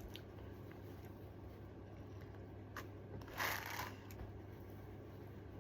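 Hair brush strokes through a styling doll head's hair: faint rustling, with one louder stroke a little past the middle, over a low steady hum.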